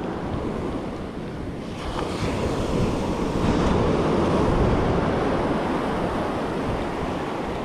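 Surf breaking and washing up the beach, swelling louder about two seconds in as a wave rushes in, with wind on the microphone.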